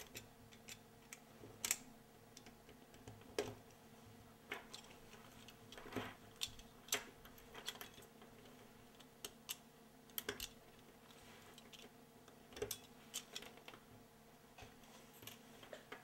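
Small plastic-and-metal clicks and taps, irregular and faint, as a pick tool and fingers work a terminal pin out of a plastic multi-pin wiring-harness connector, over a faint steady hum.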